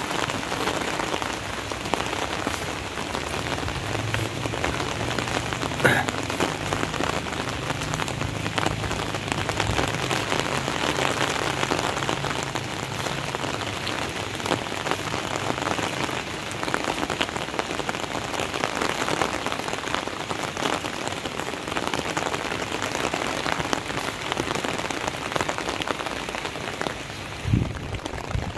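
Steady heavy rain falling on concrete and standing floodwater, with a sharp tap about six seconds in.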